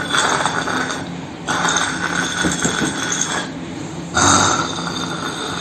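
Loud snoring in long, regular snores about two and a half seconds apart.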